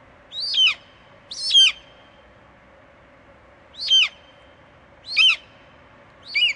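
Bald eagle calling: five short, high-pitched notes, each falling in pitch, spaced one to two and a half seconds apart, over a faint steady hiss.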